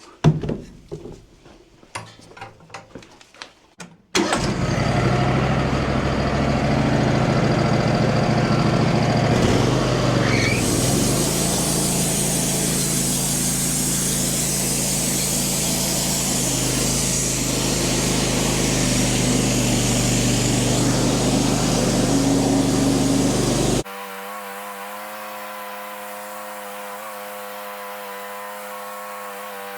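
A few light knocks and clicks, then the Wood-Mizer LT15 portable band sawmill starts up suddenly about four seconds in and runs loudly and steadily as it saws another slab from the black cherry log. It drops abruptly to a quieter, steady hum a few seconds before the end.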